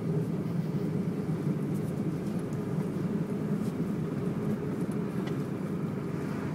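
A 1993 Toyota Corolla's engine idling steadily.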